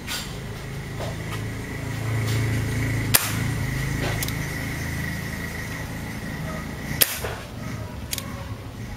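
Two sharp shots about four seconds apart from a KJ MK1 gas-powered airsoft carbine, with a few fainter clicks around them, over a steady low hum.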